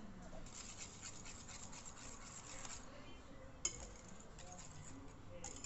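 Wire balloon whisk stirring cocoa powder into a wet cake batter in a ceramic bowl: a quick run of faint rubbing, scraping strokes, then a single sharp click about three and a half seconds in.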